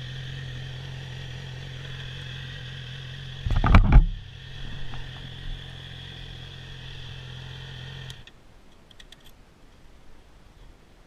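Stock Yamaha R6 inline-four idling steadily, then switched off about eight seconds in, the hum cutting out suddenly. Just before the middle a loud, brief rumbling burst covers it, and a few light clicks follow the shutdown.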